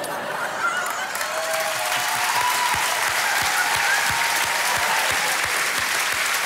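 Studio audience applause that swells over the first second or two and then holds steady.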